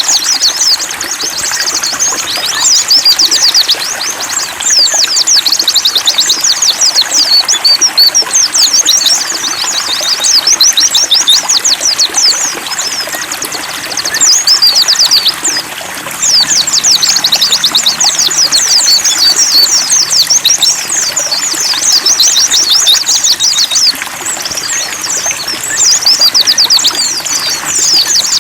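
Several white-eyes (pleci) twittering in fast, high, dense chirps almost without pause, with two short lulls, over a steady trickle of water.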